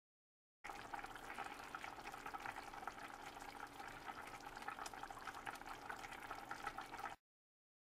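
Pot of chicken cacciatore sauce bubbling at a simmer, a steady crackle of many small pops. It starts abruptly under a second in and cuts off just as abruptly near the end.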